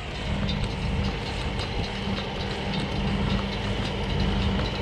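Tractor towing a round baler through hay windrows: a steady engine-and-driveline hum with the baler's light, regular clatter as it picks up and rolls the hay.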